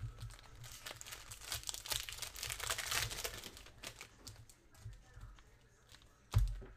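Plastic trading-card pack wrappers crinkling and tearing as packs are ripped open and handled, with one sharp thump near the end.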